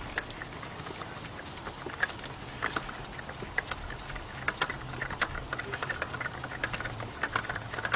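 Ratchet and spark plug socket clicking at irregular intervals as a spark plug is worked loose from the cylinder head, with scattered metallic ticks and taps.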